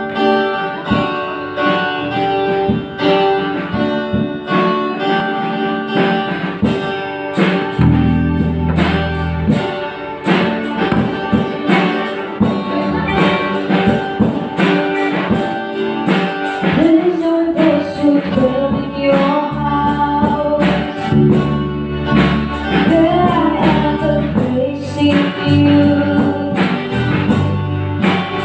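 A live worship band playing: strummed acoustic guitar, keyboard and drum kit with a steady beat. A woman's voice comes in singing the melody about halfway through.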